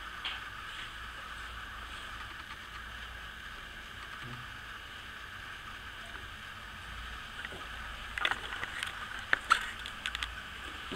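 Electric motor of a lever-loaded lubricant wear tester running steadily, its spinning ring rubbing against a test roller under an oil film. From about eight to ten and a half seconds in, a handful of sharp clicks and knocks as the load lever is handled.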